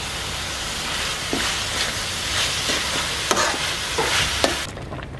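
Mushrooms and fried tofu strips sizzling in an oiled wok while a spatula stirs and scrapes them, with a few sharp knocks of the spatula against the wok. The sizzle cuts off suddenly near the end.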